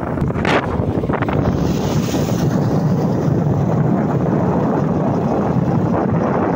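Wind rumble on the microphone from riding a motorcycle, with the motorcycle's engine and tyre noise underneath. There is a brief sharper rush about half a second in.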